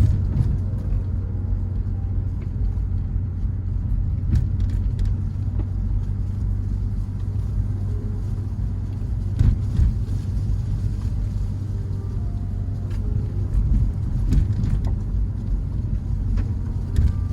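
A car driving, its low rumble steady, with scattered short knocks and rattles over a rough road surface.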